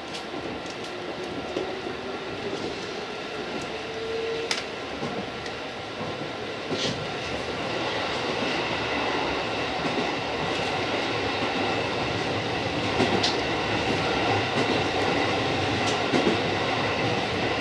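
JR East 205 series electric train running: steady rumble and hum of wheels and motors, slowly getting louder, with a short rising tone in the first few seconds and a few sharp clicks from the track spread through.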